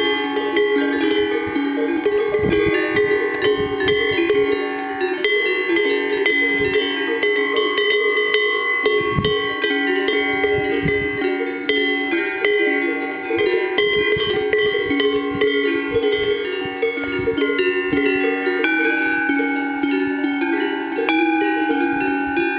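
Herd of Swiss cows wearing cowbells: many bells of different pitches clanging at irregular moments, ringing on and overlapping into a continuous din.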